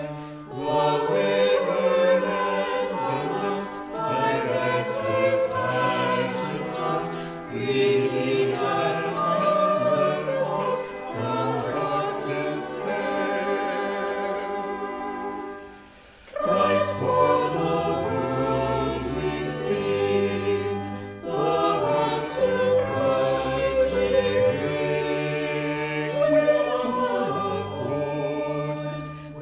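Choir singing, slow sustained chords; the singing breaks off briefly about halfway through and then resumes.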